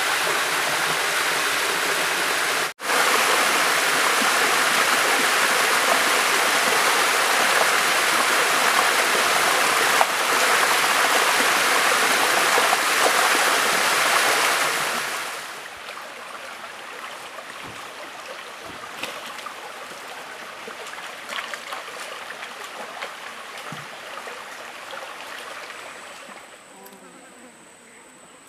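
Water pouring down a small waterfall and rushing over rock, a loud steady rush with a brief break about three seconds in. About halfway through it stops suddenly, leaving a much quieter outdoor background with scattered small clicks and a faint high steady tone near the end.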